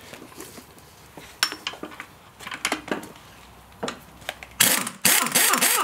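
Metal suspension parts clinking and tapping as they are handled. About four and a half seconds in, a pneumatic impact wrench starts up loudly in short bursts, working on the strut top mount.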